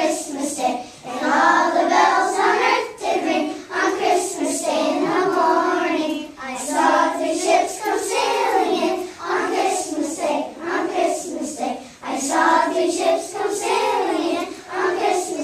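A group of young children singing a song together in unison, in phrases with short breaks between them.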